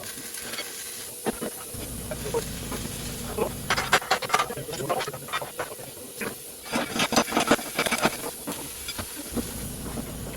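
Knocking and clatter of metal parts and tools, with a low steady hum that comes in about two seconds in.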